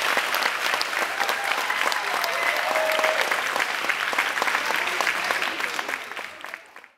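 Audience applauding, with a few voices calling out among the clapping; the sound fades out near the end.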